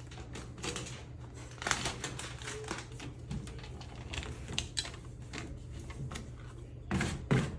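A squeegee being worked over tape on a sheet-metal box: irregular short scraping and tapping strokes over a steady low hum.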